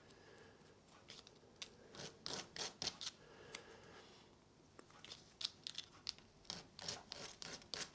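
A small 3D-printed PLA inlay being rubbed by hand on a sanding disc to round off its corners: faint, short scratchy strokes, a few around the middle and a quicker run of them in the second half.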